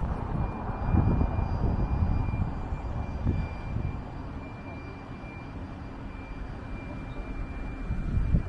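Low engine rumble of passing motor traffic, easing off through the middle and building again near the end.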